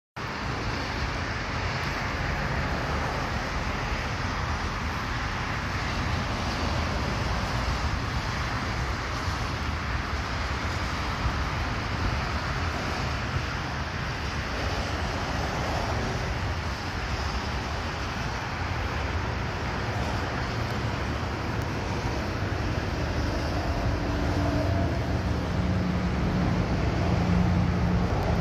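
Steady outdoor noise of wind and road traffic, heavy in the low end, with a low engine hum coming in near the end.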